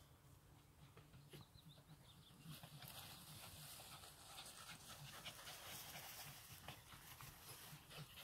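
A Japanese Spitz panting faintly, a soft steady breathing that gets a little louder a few seconds in.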